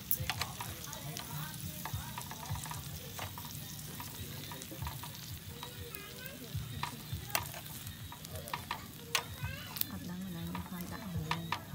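Food frying in a pan while a utensil stirs it, clicking and scraping against the pan many times.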